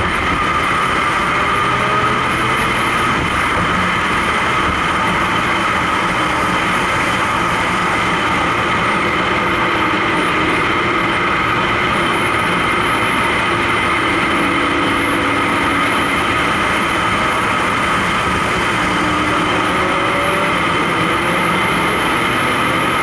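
Car cruising at a steady highway speed, heard from inside the car: an even drone of engine, tyres and wind with no revving or gear changes.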